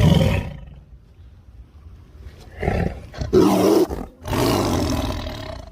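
Tiger roaring: a short loud burst at the start, then after a pause two long, loud roars, the second rougher and harsher.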